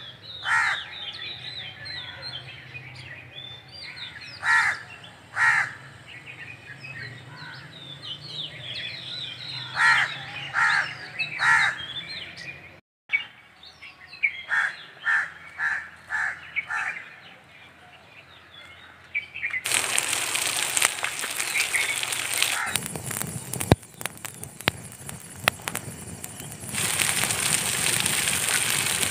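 Birds calling outdoors, a string of short, harsh, repeated calls with lighter chirping between them. About two-thirds of the way through it switches abruptly to the steady crackle and sizzle of a wood fire under chicken grilling on a hot slab, with sharp pops through it.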